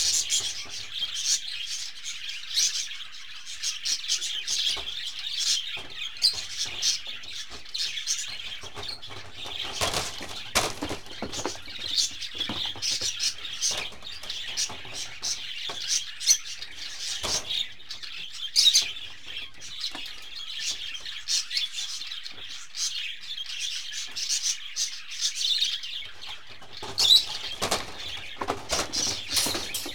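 Budgerigars chattering and chirping continuously, with a few sharp knocks scattered through, the loudest about two-thirds of the way in and near the end.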